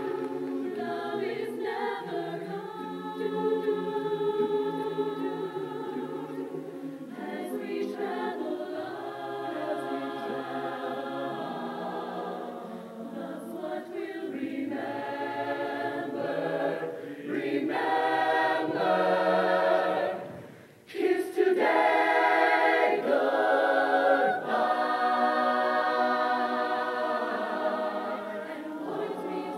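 A mixed high school show choir of male and female voices singing together. There is a brief break about two-thirds through, then the full choir comes back in loudly.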